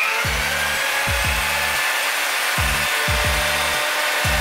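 A homemade mini belt grinder, a sanding-belt attachment driven by a variable-speed angle grinder, on its first test run: the motor comes up to speed in a short rising whine at the very start, then runs steadily with the belt whirring.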